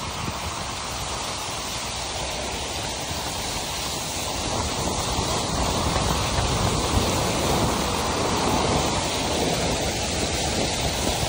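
A car's tyres ploughing through standing floodwater on the road: a steady rush of splashing water, growing louder about halfway through, with wind buffeting the microphone.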